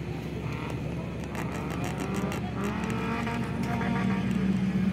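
Engine of an off-road race vehicle driving along a dirt course, a steady drone that grows louder over the second half.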